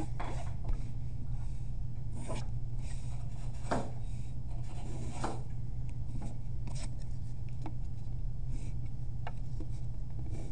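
Pencil scratching along a wooden yardstick on paper in short strokes every second or two, with the ruler being slid and set down between lines, over a steady low hum.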